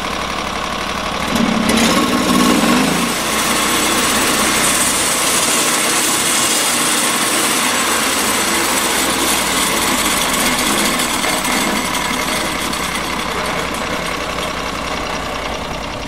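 Norwood LumberPro portable band sawmill running, its band blade sawing through a squared log cant in one steady pass. The noise grows a little about a second and a half in and then holds steady.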